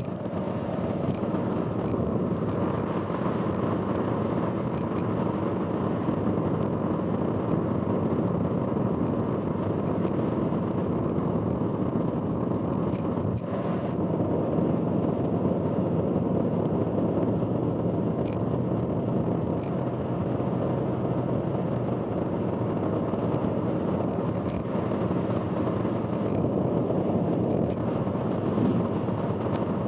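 Steady road noise of a car driving on an expressway: a continuous drone of tyres and engine, with faint ticks now and then.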